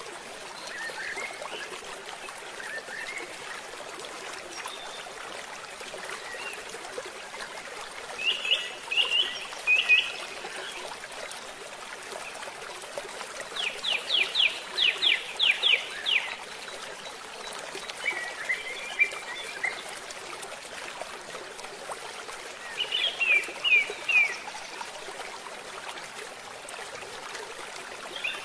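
Small birds calling in bursts of quick repeated chirps, one a run of about ten fast downward-sweeping notes, over a steady rush of water pouring from a culvert into a channel.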